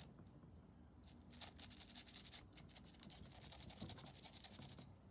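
A small cleaning brush scrubbing the oiled recoil spring of a Glock 48 pistol, in quick, faint scratchy strokes that start about a second in.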